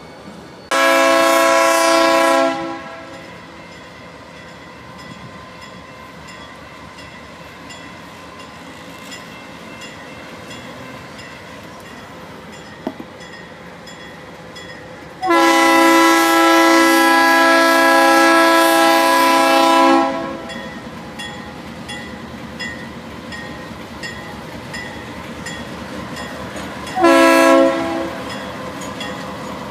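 Norfolk Southern diesel locomotive's air horn sounding three chords: a short blast, a long one of about five seconds midway, and a short one near the end. A steady rumble of the moving freight train with wheel clatter runs between the blasts.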